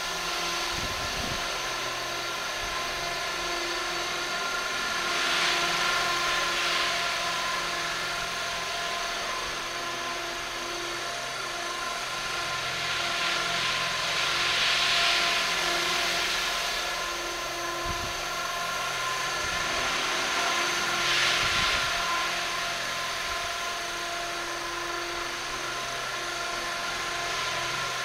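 450-size electric RC helicopter flying: a steady whine from the motor and gears with the rotor's whirr, swelling louder three times, about five, fifteen and twenty-one seconds in.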